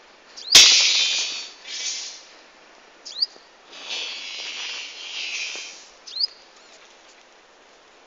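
Small bird giving short rising chirps, three of them about three seconds apart. A sharp click comes about half a second in, with two longer, louder hissing bursts after it, the first right after the click and the second in the middle.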